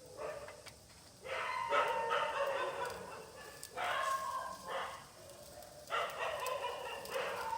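A dog barking and yelping repeatedly, about five calls with short pauses between them.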